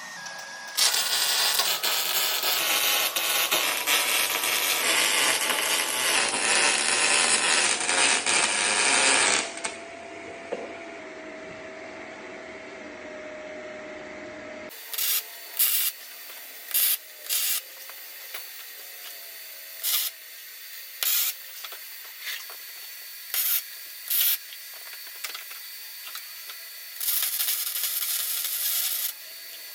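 Loud continuous abrasive grinding or sanding on metal for about nine seconds. After a break, there is a run of short hissing bursts of about half a second each and one of about two seconds near the end, like MIG tack welds and a short weld bead.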